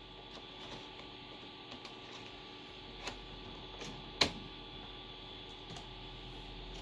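Compaq LTE Elite laptop running after a failed boot: a faint steady hum with a few thin steady tones, and scattered soft ticks and clicks, one sharper click about four seconds in.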